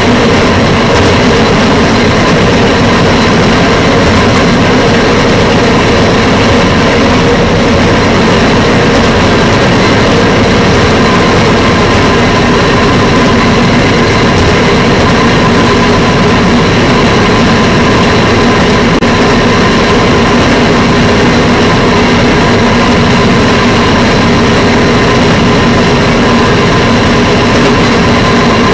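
Engine of a rail fire-patrol vehicle running steadily as it travels along the track: a constant loud drone with a steady whine over rushing noise.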